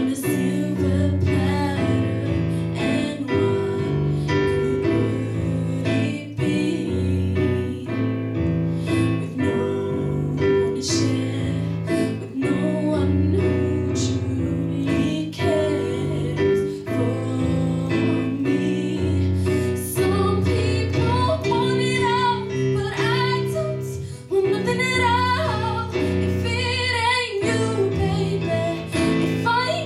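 A young woman singing a ballad into a microphone over a Casio Privia digital piano playing sustained chords. Her voice grows stronger, with vibrato, in the second half.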